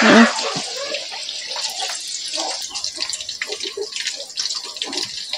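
Cubes of tofu sizzling and crackling as they deep-fry in hot oil in a wok: a steady hiss with many small pops.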